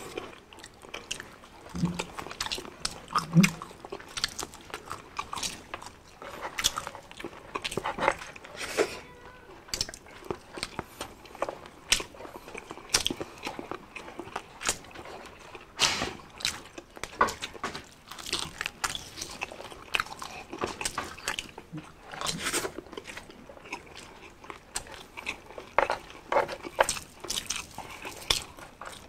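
Close-miked eating: irregular crisp crunching and chewing as two people bite into crispy deep-fried pork and fried chicken by hand.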